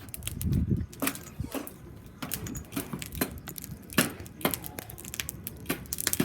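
Fire crackling and popping: irregular sharp cracks, several a second, with a brief low rumble about half a second in.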